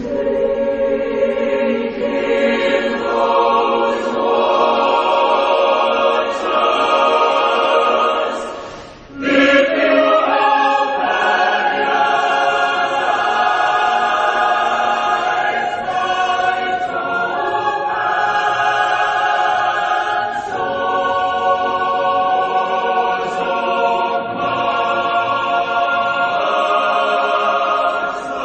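Mixed choir of men's and women's voices singing long held chords. The sound breaks off briefly about nine seconds in, then the choir comes back in full.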